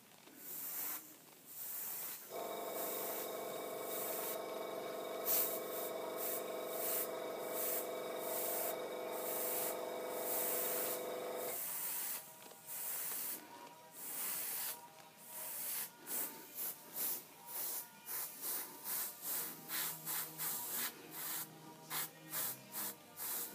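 Iwata Eclipse airbrush spraying paint in bursts of hiss as the trigger is pressed and released, the bursts growing short and quick, about one a second, in the second half. A steady chord of held tones sounds underneath from about two seconds in to around twelve seconds.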